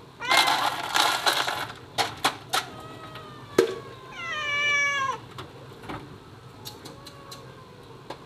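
A domestic cat meowing several times, drawn-out meows that fall in pitch, the loudest about four seconds in. A loud noisy burst fills most of the first second and a half, and a few sharp knocks follow.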